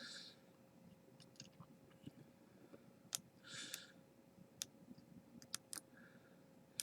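Faint, scattered sharp clicks of lock picks working the pins of a Master Lock 140 padlock, with a short breath about three and a half seconds in.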